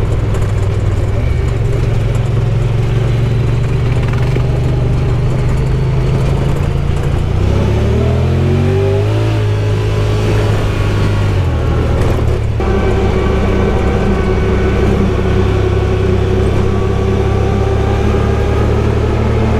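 Side-by-side UTV engine running while driving on a trail. Its pitch rises as it accelerates about seven to nine seconds in, then it holds steady again.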